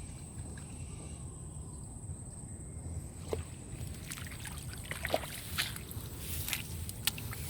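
Water sloshing and splashing in a shallow stream as someone works in it, the splashes coming more often from about three seconds in.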